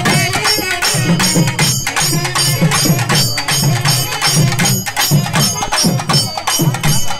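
Loud traditional festival drumming and percussion, with fast, even strokes over a deeper beat about twice a second.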